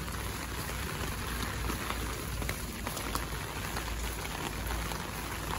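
Steady rain falling on a wet street, an even hiss with scattered sharp drip ticks.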